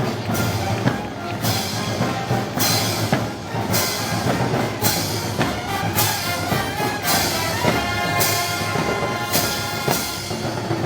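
Festival band music of the kind played for Moros y Cristianos parades: drums with a cymbal crash about once a second under sustained brass notes, the held notes stronger in the second half.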